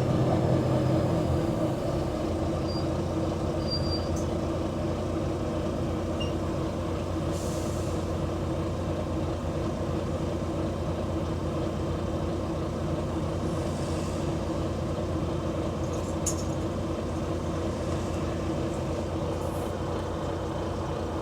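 Diesel bus engine running with a leaking exhaust, easing down in the first couple of seconds and then running steadily at a low rumble. A short hiss of air about seven seconds in.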